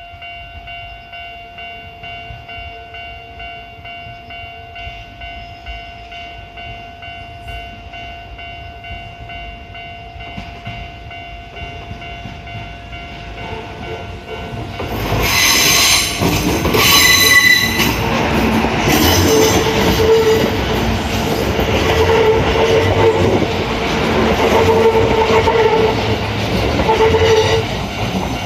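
A Japanese railway crossing alarm rings steadily, then a Kintetsu limited express train, the Aoniyoshi, arrives with two short horn blasts about fifteen seconds in. Its wheels clatter over the rails as it passes loudly through the crossing while the alarm keeps ringing.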